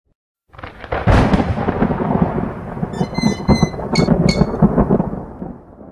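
Thunder sound effect: a crash starting about half a second in, then a long rolling rumble with crackles that fades away near the end.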